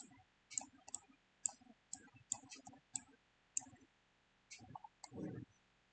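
Computer mouse clicking: sharp, irregular clicks, about one or two a second, as nodes are dragged and connected. A short low sound comes near the end.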